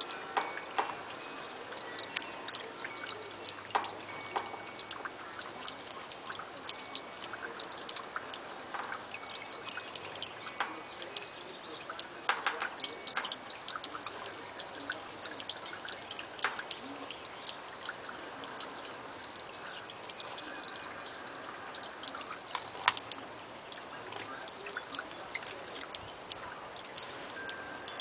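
Water from a small submersible-pump bubbler fountain trickling and splashing over river stones, with short high bird chirps repeating every second or two, more often in the second half.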